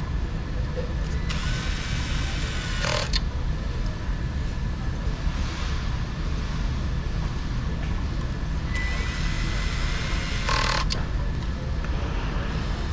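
A hand tool working on fasteners in two spells of about two seconds each, each ending in a short sharp sound, over a steady low rumble.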